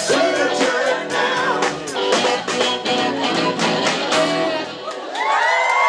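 Live rock band playing, with drum kit, electric guitar, saxophone and a male singer. The song stops about five seconds in and the audience starts cheering and whooping.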